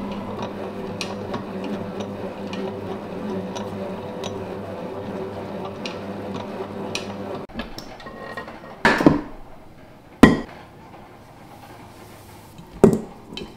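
Stand mixer motor running steadily while it kneads dough, with light clicks from the bowl. The motor stops about seven and a half seconds in. Then come three loud knocks as the stainless steel bowl and utensils are handled on the wooden table.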